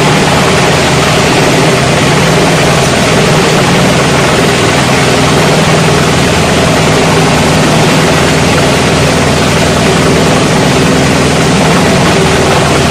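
A 28-inch plastic scrap grinder running loud and steady, its cutters chopping plastic scrap as it is fed into the hopper, over a steady low machine hum.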